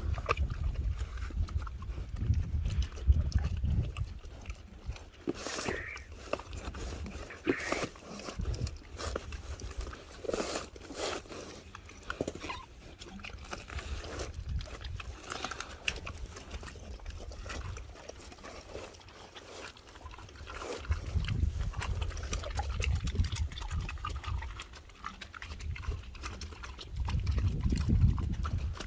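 Pigs eating vegetable and fruit scraps: irregular wet crunching and chomping, with bouts of low rumble near the start and again in the last third.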